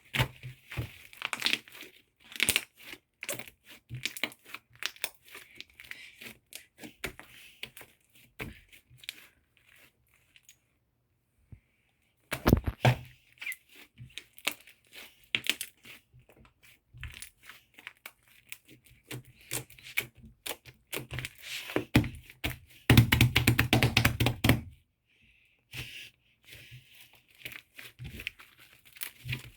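Close handling noise: irregular crinkling, tearing and light knocking, with a short quiet pause about a third of the way in and a louder, denser stretch of crackling lasting about two seconds later on.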